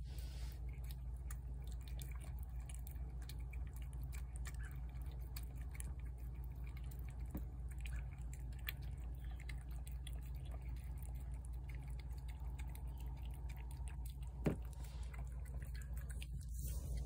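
A cat chewing and smacking wet shredded chicken from a plate: a run of small, wet clicking sounds, with one sharper click about fourteen seconds in, over a low steady rumble.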